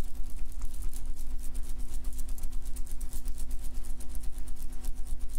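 A machine running steadily with a rapid, even pulse of about ten beats a second over a low hum.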